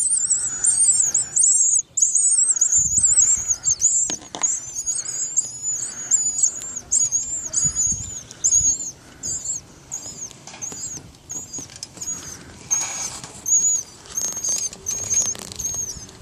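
Hungry baby birds in a birdhouse giving rapid, high-pitched chirping begging calls without pause: nestlings begging for food.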